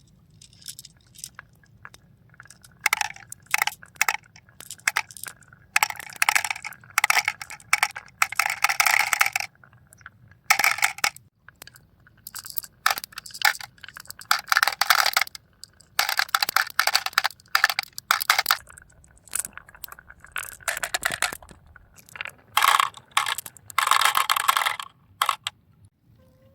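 Marbles rolling and clattering down a marble run track, in repeated bursts of rattling clicks with short gaps between.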